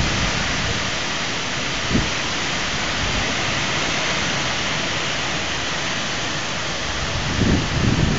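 Steady heavy rain falling, an even hiss, with a single low knock about two seconds in and low rumbling swells near the end.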